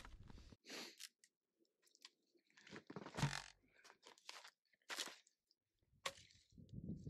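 Dry dead branches being snapped and broken by hand: a series of separate sharp cracks and crunches with short pauses between, the loudest about three seconds and five seconds in.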